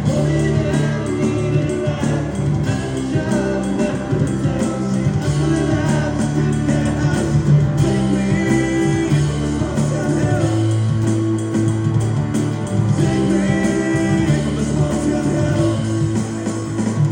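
Live band playing a song, with bass and guitar at a steady, even loudness and a sung vocal line.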